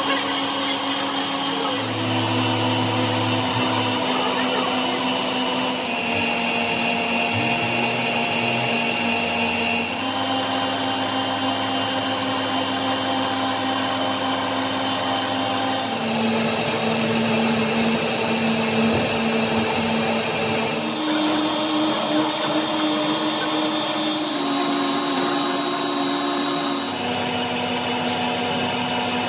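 Workshop machine tools running steadily, a continuous motor hum whose pitch jumps to a new steady note every few seconds.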